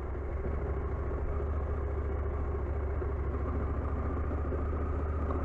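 Husqvarna Norden 901 adventure motorcycle's parallel-twin engine running at a steady low speed as the bike rides along a loose, deep sand track.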